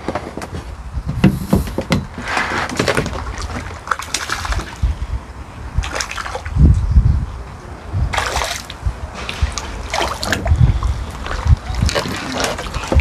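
Hooked crucian carp splashing at the pond surface as it is played in and netted, in a run of irregular splashes.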